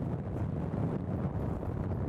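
Strong wind buffeting the microphone: a low rushing noise that wavers constantly in strength.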